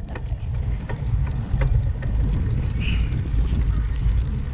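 Wind buffeting the microphone of a handlebar-mounted camera on a moving bicycle: a steady low rumble, with a few light clicks from the bike.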